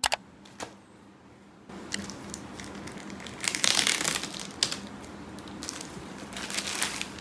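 Packaging crinkling and rustling as it is handled, in irregular bursts, with a couple of sharp clicks near the start.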